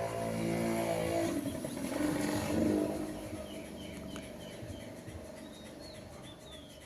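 A motor vehicle goes by, swelling and then fading, after a music bed cuts off about a second in; short bird chirps follow in the second half.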